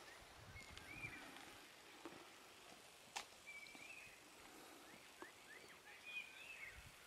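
Near silence outdoors, with faint bird chirps and short whistled notes scattered throughout, and a few soft clicks, the sharpest about three seconds in.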